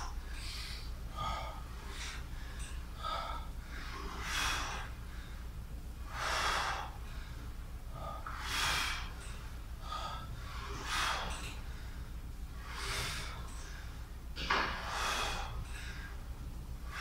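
A man breathing hard under exertion through a set of seated leg curls on a weight machine: a forceful exhale about every two seconds, one with each rep. A steady low hum runs underneath.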